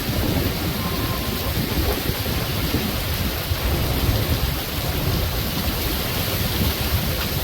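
Heavy tropical-storm rain pouring down steadily, with a low rumble from the gusting wind.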